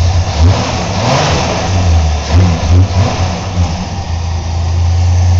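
A 1984 Chevy S-10's 2.8-litre V6, fed by a Holley 390 cfm four-barrel carburetor, revved by hand at the throttle linkage in several quick blips, then settling back to a steady idle near the end. The engine is still cold.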